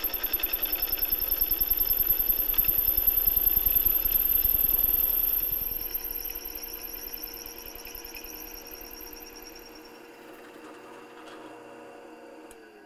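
Drill press running, its twist bit drilling through an aluminum plate with a fast, even chattering rattle over a steady motor hum. About halfway through the cutting eases off and the sound fades, and near the end the motor hum falls in pitch as the spindle winds down.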